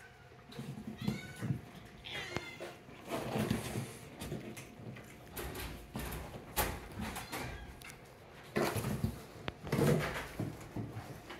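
Domestic cats meowing several times in short calls, the loudest near the end.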